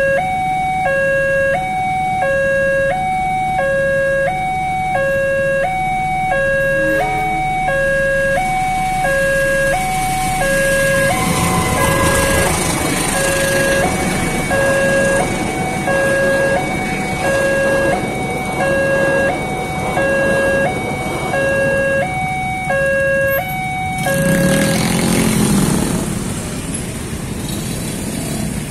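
Level-crossing warning siren alternating between two tones, each held about half a second, while a passenger train rumbles past from about eleven seconds in. The siren cuts off about 24 seconds in and motorcycle engines rev up as the traffic starts to move.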